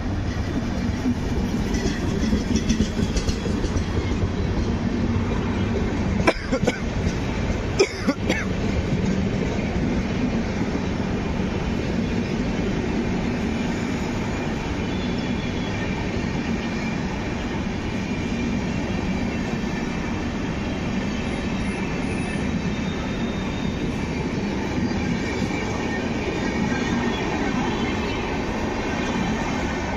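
Orange-and-grey LHB passenger coaches of a departing express rolling past close by, a steady rumble and clatter of wheels on the rails. Two sharp knocks come about six and eight seconds in.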